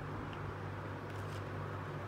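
Steady low hum and hiss, with a few faint light clicks as small plastic toy pieces are handled.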